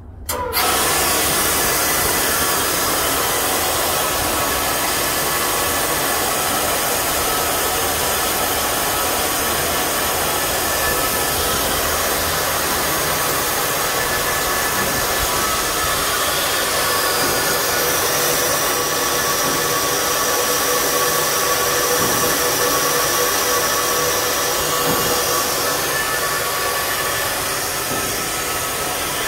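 Compressed natural gas rushing at high pressure from a fast-fill CNG dispenser into a semi truck's fuel tanks: a loud, steady hiss that starts suddenly about half a second in, with faint whistling tones in it.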